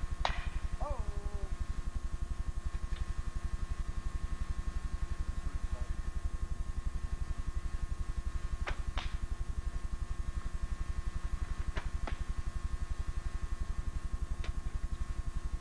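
Steady electrical hum and buzz on a VHS camcorder's sound track, with a few sharp clicks at intervals.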